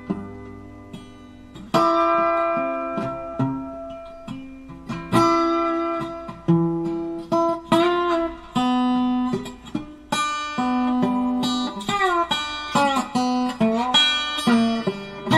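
Background music on guitar: single plucked notes ringing out one after another, with a few notes sliding in pitch near the end.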